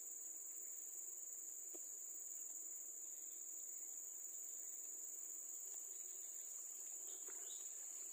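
Steady, high-pitched insect chorus shrilling without a break, with a faint click or two.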